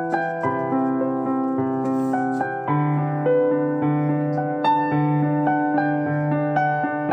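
Background piano music: a gentle melody of evenly paced notes over held low chords.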